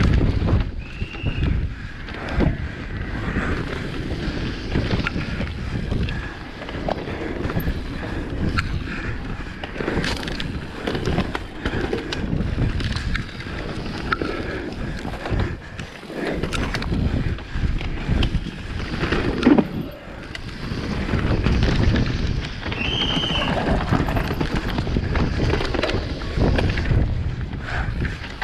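Electric mountain bike descending dirt singletrack: wind buffeting the microphone over the rumble of tyres on dirt, with the frame and chain rattling and knocking over bumps. Two brief high squeaks, about a second in and again near 23 s.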